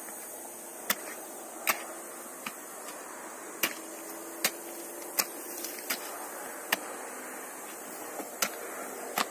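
Hoe blade chopping into hard, dry hillside soil as holes are dug for planting cassava. About ten sharp strikes come roughly one a second.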